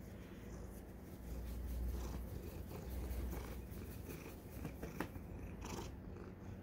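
Tortoiseshell cat purring while being petted, a low rumble that swells in stretches of about a second. A few short clicks come near the end.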